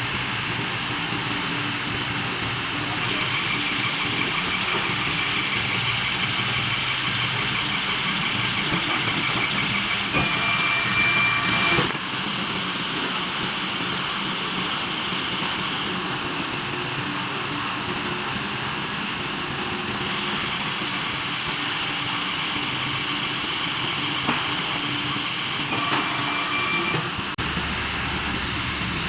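Steady machine noise from a hot press for wooden doors running, with a low hum under it. A thin high whine comes in briefly about ten seconds in and again near the end.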